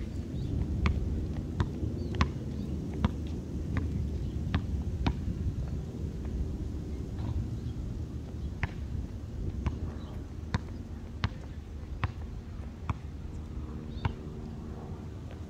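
A basketball bouncing on a concrete court as it is dribbled: sharp slaps about one every half to one second at first, more spread out later. A steady low rumble runs underneath.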